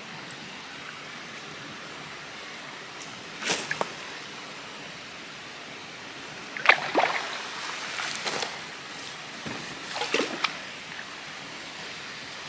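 Water splashing in short, sudden bursts as a small hooked mirror carp thrashes at the surface while it is played in to the bank. There are four bursts: about three and a half, seven, eight and ten seconds in.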